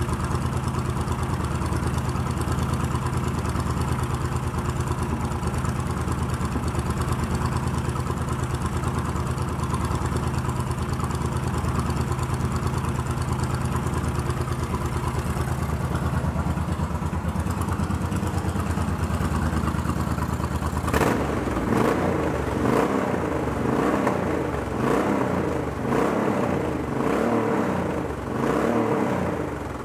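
2000 Suzuki VL1500 Intruder's liquid-cooled V-twin idling steadily. About two-thirds of the way through it is revved in a run of short throttle blips, each rising and falling back, and near the end it settles down quieter.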